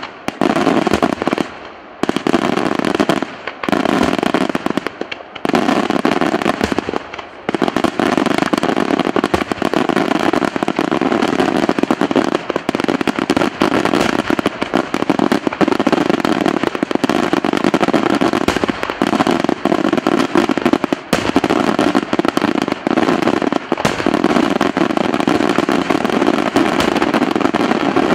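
Daytime fireworks barrage: a dense, rapid run of firecracker bangs, with a few brief lulls in the first seven seconds or so, then an unbroken rattle of reports.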